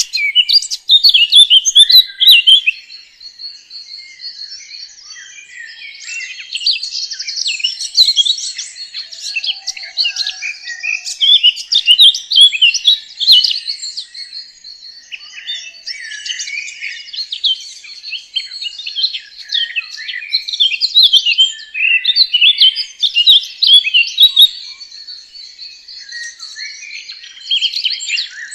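Several songbirds chirping and singing at once, calls and trills overlapping without a break, over a thin steady high tone.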